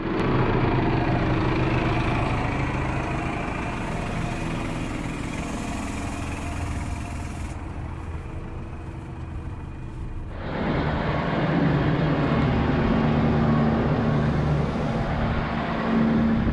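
Diesel engines of harvest machinery running close by, heard in a series of cuts: first a Fendt 313 tractor, then, from about ten seconds in, a louder, steadier hum from a Claas Lexion 780 combine harvester.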